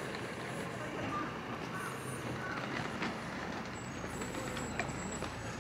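Street ambience with scattered faint voices of passers-by; a low rumble comes in about four seconds in, with a thin high whine over it briefly.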